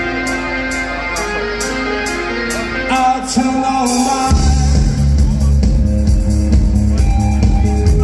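Live indie rock band playing: sustained keyboard and guitar notes over a steady high ticking beat, about three ticks a second. About four seconds in, the bass and kick drum come in hard and the music gets louder.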